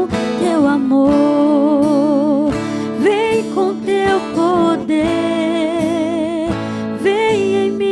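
A Portuguese Catholic worship song: sustained sung lines with vibrato over steady instrumental accompaniment.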